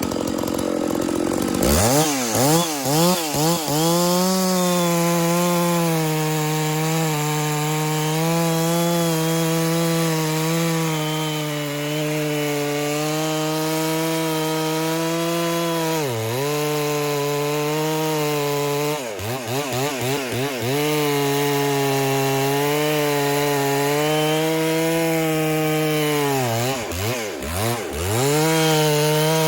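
Chainsaw revved in a few quick blips, then held at a steady high pitch while cutting through dead pecan wood. The revs drop and pick up again about half-way through, twice more soon after, and once near the end.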